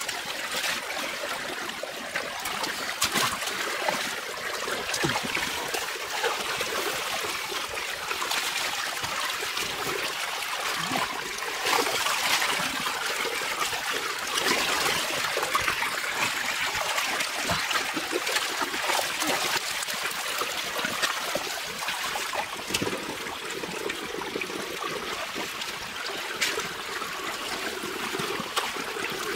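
Muddy water running and trickling through a shallow dug drain, with small splashes throughout as hands grope in the water and a bamboo basket scoops through it.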